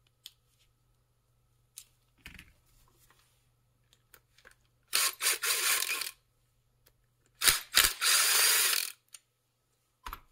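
Cordless drill-driver spinning out screws from a small gear motor's gearbox housing in two short runs. The first starts about five seconds in and lasts about a second; the second starts about seven and a half seconds in and lasts about a second and a half. A few light clicks of small metal parts being handled come before.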